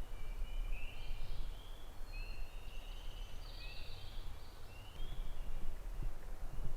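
Songbirds singing: many short, high chirps and trills, several overlapping, over a low steady rumble.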